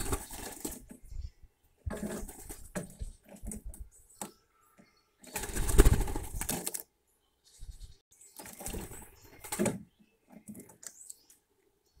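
A Eurasian jay rummaging and pecking in grain in a wooden feeder tray close to the microphone: four bursts of scraping, rustling and rapid tapping, the loudest about six seconds in.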